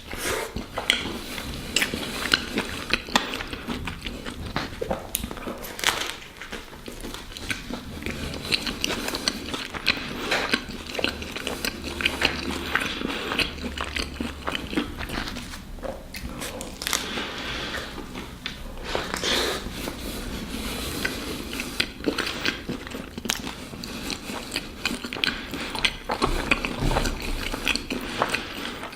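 A person biting and chewing a tuna baguette sandwich, with many small irregular crunches and clicks throughout.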